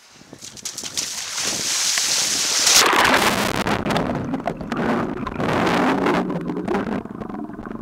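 Seawater splashing and rushing, building up fast; about three seconds in the sound turns muffled, with underwater churning and bubbling as the camera goes under in the sea with a swimmer plunging in.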